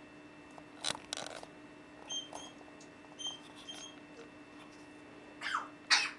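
African grey parrot calling: short harsh squawks, with a few brief clear whistles at one pitch in the middle and a falling call just before the loudest squawk near the end.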